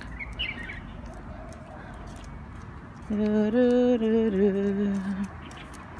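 Outdoor background noise, then about three seconds in a voice sings or hums a few long held notes that step up and then down in pitch, lasting about two seconds.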